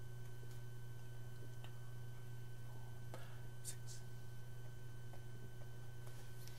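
Steady low hum with a faint high whine, broken by a few faint short clicks a little past the middle.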